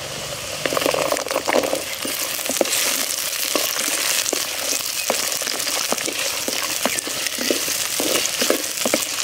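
Peeled shallots dropped into hot oil in a clay pot with garlic and curry leaves, sizzling and crackling steadily as they fry, stirred with a wooden spoon. The sizzle swells about half a second in, as the shallots hit the oil.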